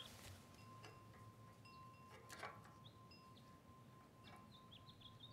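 Near silence: faint bird chirps and a faint steady high tone, with a few soft clicks as the generator's plastic wire connectors are handled.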